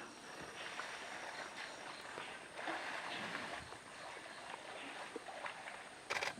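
Water splashing and sloshing as Asian elephants wade and drink in a shallow waterhole, with sharper, louder splashes near the end.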